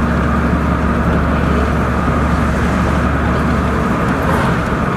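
Vehicle driving at a steady speed, heard from inside the cabin: a steady engine hum under the road and tyre noise.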